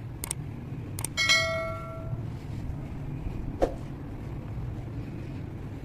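Two mouse-click sound effects followed by a short, bright bell ding, the stock sound of an animated subscribe-button overlay, over a steady low outdoor rumble. A single knock comes about three and a half seconds in.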